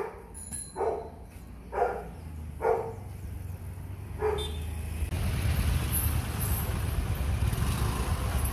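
A dog barking five times, roughly once a second. From about five seconds in, a vehicle engine running close by takes over as a steady low noise.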